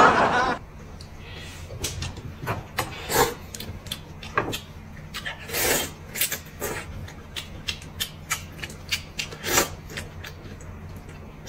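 Close-miked eating: noodles slurped from a bowl and food chewed, with many small wet mouth clicks and smacks and a few longer slurps.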